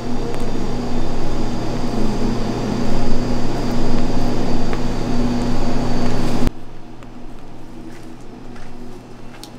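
A small electric motor running with a steady hum and noise, cutting off abruptly about six and a half seconds in.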